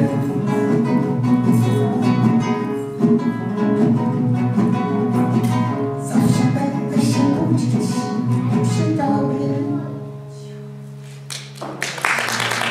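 Acoustic guitar playing an instrumental passage of quick plucked and strummed notes. After about ten seconds it settles on a few held notes that ring out quietly. Near the end comes a short burst of broad noise.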